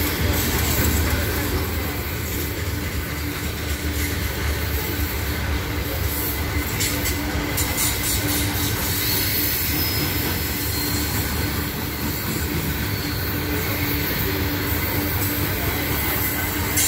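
Loaded coal hopper cars of a long freight train rolling past on steel wheels: a steady low rumble of wheels on rail, with a thin steady squeal from the wheels.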